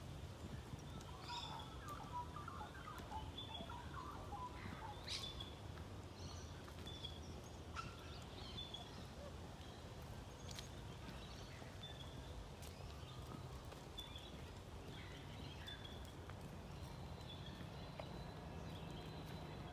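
Wild birds calling in bushland: short high chirps repeat every second or so, with a flurry of lower calls a second or two in, over a low steady background rumble and a few sharp clicks.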